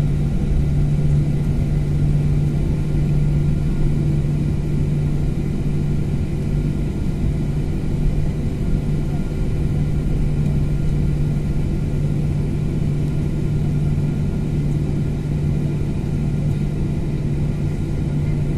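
Jet airliner cabin noise while taxiing: the engines running at low power as a steady rumble with a constant low drone.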